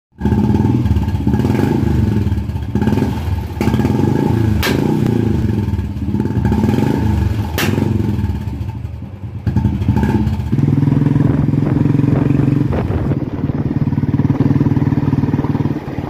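Royal Enfield Classic 350's single-cylinder engine revved up and down through an aftermarket performance exhaust, with sharp pops among the revs, the loudest two about five and eight seconds in. After that it is held at steady revs.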